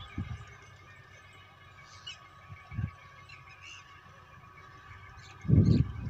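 Open-air ambience: faint high bird chirps over a steady distant hum. A few short low rumbles break through, the loudest lasting about half a second near the end.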